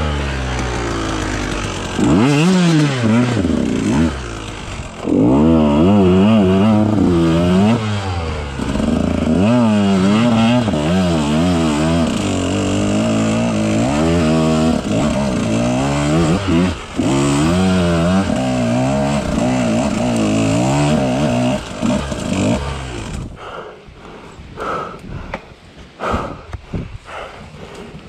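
2018 KTM 150XCW's two-stroke single-cylinder engine revving up and down again and again, its pitch rising and falling every second or so. About 23 seconds in the engine sound stops, leaving scattered knocks and scuffs.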